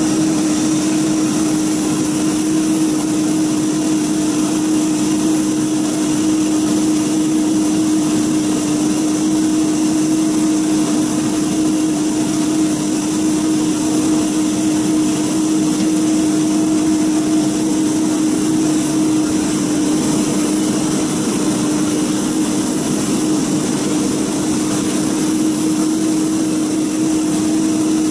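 Jet engines of an Airbus A320-family airliner running at taxi power: a steady engine noise with a low hum and a high whine over it, unchanging throughout.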